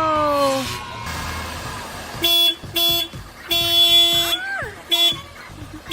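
Skid steer's horn sounded in irregular toots from about two seconds in: two short blasts, one held for almost a second, then another short one.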